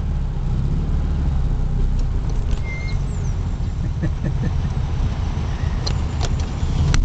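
Car running and moving, heard from inside the cabin: a steady low engine and road rumble, with a few light clicks near the end.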